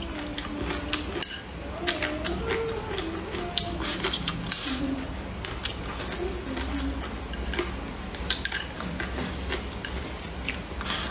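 Close-up eating sounds: wet chewing and mouth clicks, with chopsticks tapping and scraping against a ceramic rice bowl in many short, irregular clicks.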